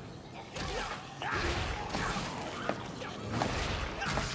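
Action sound effects: whooshing swishes and crashing hits, growing louder in sudden steps about half a second and a second in.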